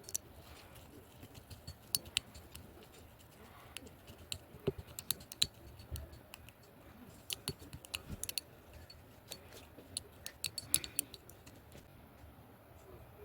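Irregular small clicks and taps in quick clusters, the sound of small hard objects being handled.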